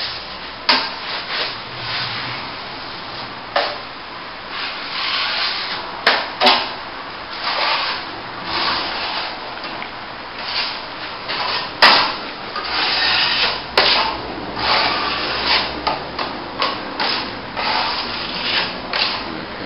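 Steel plastering trowel spreading white cornice cement over a wall repair: a run of irregular scraping strokes, with a few sharp clicks between them.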